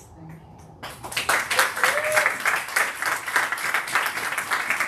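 Audience applauding, starting about a second in and keeping up as dense, steady clapping from many hands.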